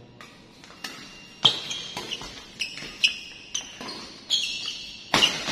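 Badminton rally: sharp racket strikes on the shuttlecock about every half second to a second, the loudest about a second and a half in, with short high squeaks between the hits.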